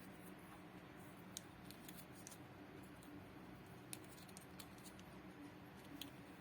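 Near silence with a faint low hum and about eight scattered, sharp faint clicks from small handling of the toy box and its packaging.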